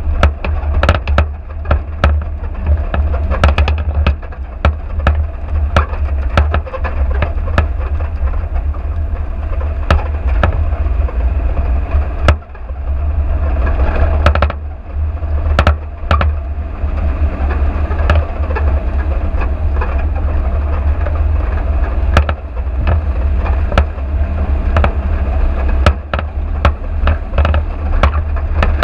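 Vehicle driving over a rough dirt track: a steady low rumble with frequent irregular knocks and rattles as it hits bumps.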